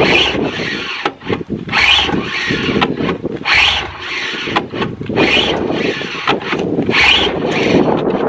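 Ski-Doo Legend snowmobile pull-started by its recoil cord: five hard rasping pulls about every 1.7 seconds, the choked engine turning over with good compression but not catching.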